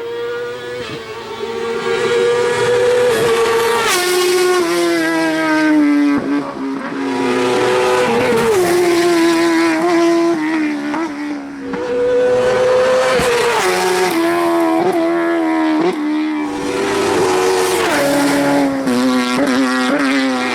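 Racing car engine driven hard, its revs repeatedly climbing and then dropping sharply as it changes gear.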